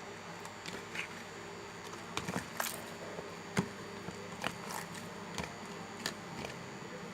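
Firm, freshly set body-wash slime being kneaded by hand, giving irregular soft clicks and squelchy snaps, over a faint steady hum.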